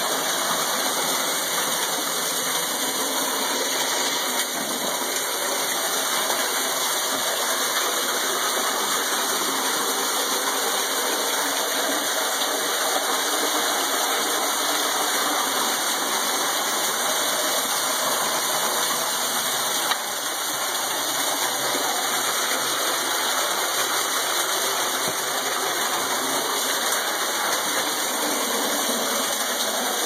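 Underground cave waterfall: water pouring down and splashing onto rock, a steady unbroken rush of water.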